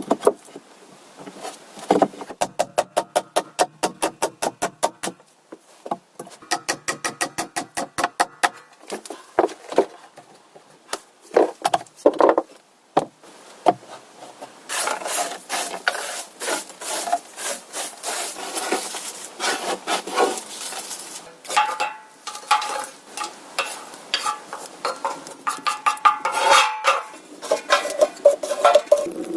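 Two runs of fast, even rasping strokes, then a long stretch of irregular scraping and rubbing.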